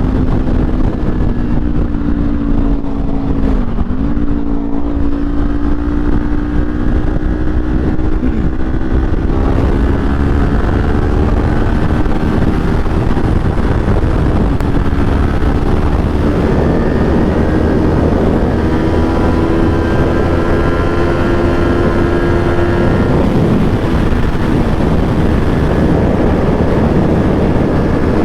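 Kawasaki Ninja 400 parallel-twin engine running at road speed under a steady rush of wind noise, its pitch dipping sharply about four seconds in and then climbing and settling again.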